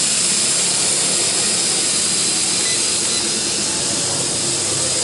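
L6036 toy quadcopter's small motors and propellers running at close range: a steady whirring buzz with a strong high hiss.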